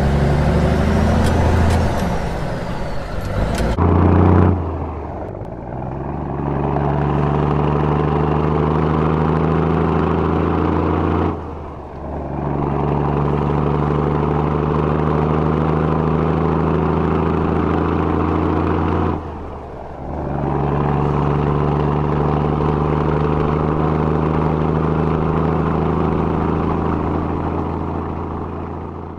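Heavy tanker truck's diesel engine running hard in a steady low drone, dropping away briefly twice and coming back. It opens with a few seconds of loud hiss that ends in a thump about four seconds in.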